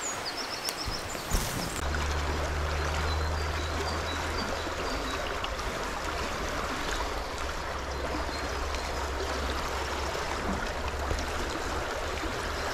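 Small brook running high after flooding, a steady rush of water over stones, with a low rumble underneath from about two seconds in.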